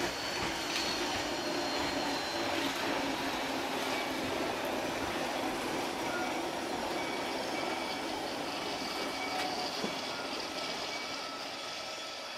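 Gornergrat Railway electric rack train rolling slowly past: a steady running rumble of wheels on the track with a few thin whining tones above it, fading near the end as it moves away.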